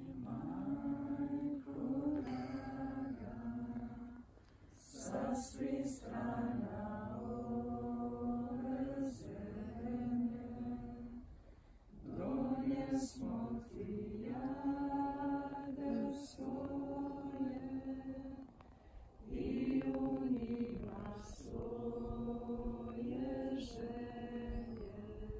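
A group of voices singing a slow devotional chant in unison, in long held phrases of about seven seconds with short breaks between them.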